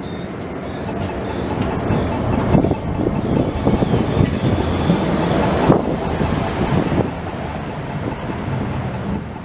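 Articulated tram passing close by: the rumble of its wheels on the rails, with several heavy knocks and a couple of brief high squeals in the first two seconds. The sound dies away over the last two seconds or so as the tram moves off.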